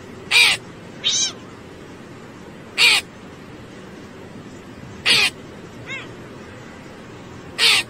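A hooded crow cawing: five short harsh caws at uneven intervals over a steady background hiss.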